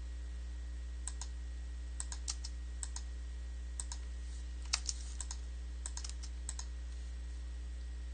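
Irregular clicks of computer keyboard keys and a mouse as CAD commands are typed and points are picked, over a steady low hum.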